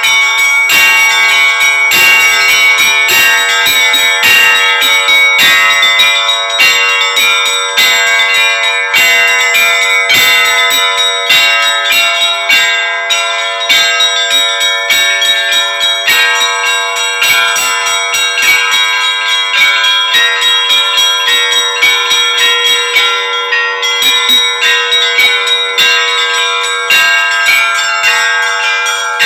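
Russian Orthodox church bells rung in a festive peal. Several bells are struck in quick, continuous succession, several strikes a second, and their tones ring on and overlap.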